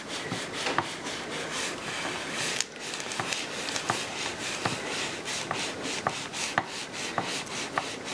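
Heated plate of a Cricut Hat Press being slid back and forth under light pressure over butcher paper on a cap: a papery rubbing and scraping in repeated strokes, with a few small clicks.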